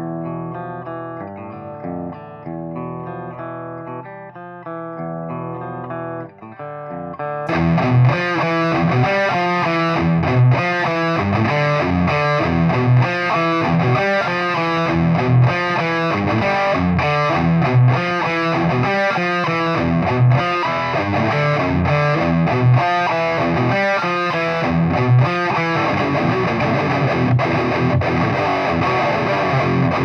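Electric guitar played through a Marshall 4x12 cabinet loaded with Eminence Wizard and Texas Heat speakers. It begins with cleaner single picked notes, then about seven seconds in switches suddenly to a loud, distorted rhythm riff with heavy low chugs.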